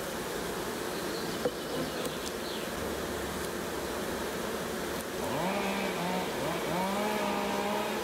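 Honeybees buzzing over an open hive. About five seconds in, a louder, steadier buzz comes in as a bee flies close, its pitch rising and then holding.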